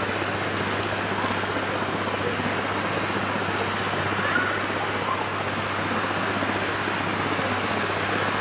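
Steady rushing of river water over rocks and shallow rapids.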